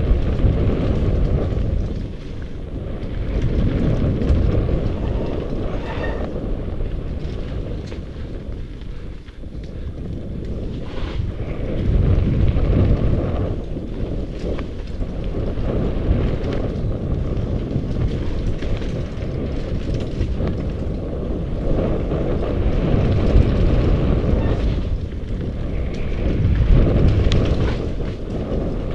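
Mountain bike descending a dirt trail: wind buffeting the bike-mounted camera's microphone over the rumble of tyres on dirt, with occasional knocks and rattles as the bike hits bumps. The noise swells and eases as the speed changes.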